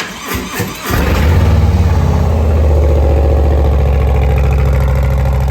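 2023 Harley-Davidson Low Rider S's Milwaukee-Eight 117 V-twin, with Tab Performance Zombie baffles that leave the exhaust nearly wide open, being started: about a second of cranking, then it catches and settles into a loud, steady idle.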